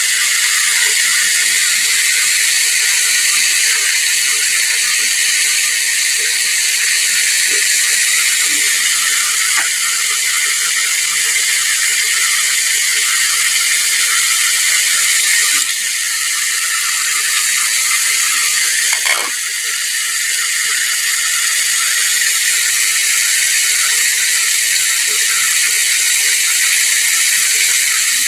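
Whole chicken deep-frying in a pot of hot oil: steady sizzling with fine crackling throughout, dipping briefly twice past the middle.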